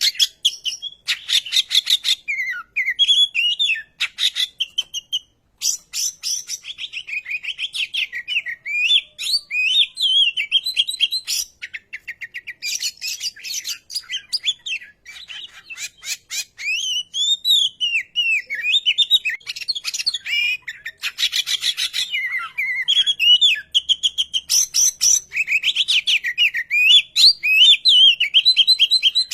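Oriental magpie-robin singing a long, varied song. Whistled notes slide up and down, and they alternate with fast rattling trills of rapid clicks, with only brief pauses between phrases.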